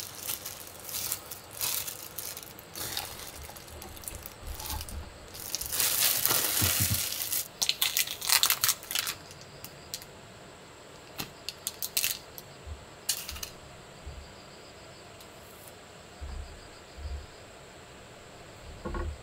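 Plastic food packaging crinkling and rustling as hands open and handle it, dense for the first nine seconds, then a few sharp clicks and taps and soft thumps as the bread and ham are laid into the sandwich maker.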